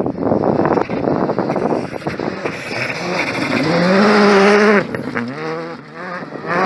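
Skoda Fabia R5 rally car's turbocharged four-cylinder engine at full throttle as the car approaches and passes at speed on gravel. The engine note climbs and is loudest about four seconds in as it goes by, cuts off sharply, then climbs again more faintly as the car pulls away.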